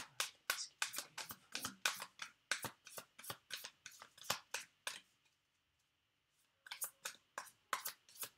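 Tarot cards being shuffled by hand: a quick run of crisp card snaps, about four a second, that stops about five seconds in and starts again near seven seconds.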